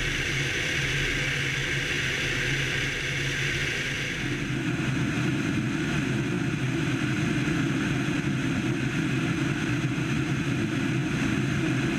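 Piper PA28-161 Warrior II's four-cylinder Lycoming engine and propeller running steadily at cruise power, a constant drone. Its tone shifts and fills out in the low end about four seconds in.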